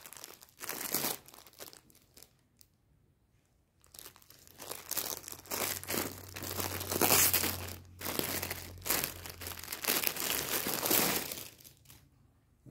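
Thin clear plastic packaging bag crinkling as hands handle it and pull it open. There is a short burst at the start, then near-continuous crinkling from about four seconds in that stops near the end.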